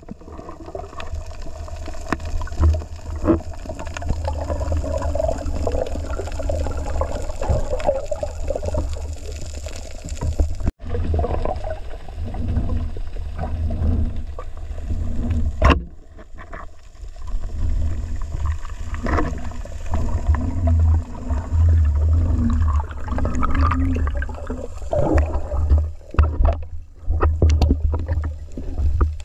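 Underwater water noise as a diver swims over a reef: a steady low rumble of moving water with scattered knocks and clicks. The sound breaks off for an instant about eleven seconds in.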